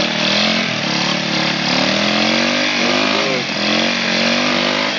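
Four-wheeler (ATV) engine revving hard, its pitch rising and falling again and again as the rider works the throttle to rock the stuck quad out of a mud hole.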